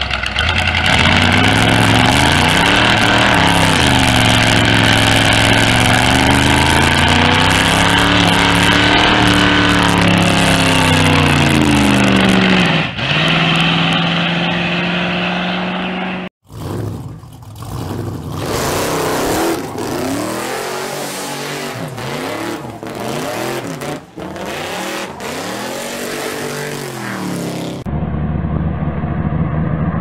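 Hot rod engines revving hard during burnouts, their pitch rising and falling repeatedly over a dense hiss of spinning tyres. After a sudden cut about 16 s in, another hot rod revs in short, jerky stabs with sharp cracks. Near the end a steadier engine note takes over.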